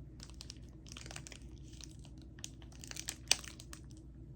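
Plastic snack packaging crinkling and rustling as it is handled, in small scattered crackles, with one sharp click a little after three seconds in.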